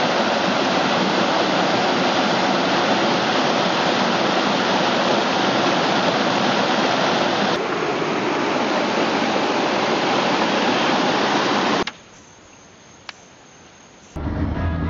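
Water rushing over rocks in a small stream cascade, a loud steady rush that eases slightly about halfway and cuts off abruptly about three seconds before the end. Then comes a quiet background with a single click, and a new low-pitched sound starts just before the end.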